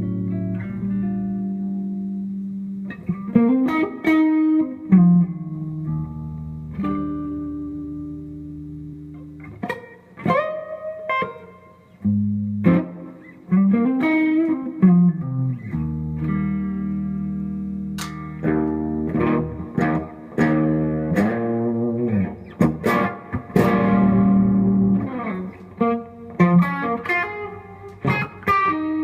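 Gretsch Electromatic electric guitar played through a Fender Bandmaster amp with compressor, EP Booster, Mayflower overdrive and Strymon Flint reverb/tremolo pedals on. It plays ringing chords and single-note phrases, with string bends gliding up and back down in pitch.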